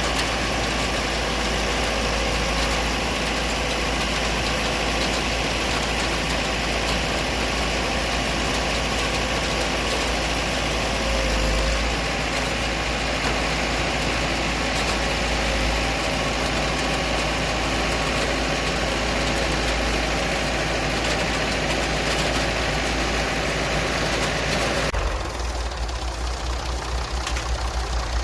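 Tractor engine running steadily. About 25 seconds in the sound changes abruptly, becoming slightly quieter with a pulsing low rumble.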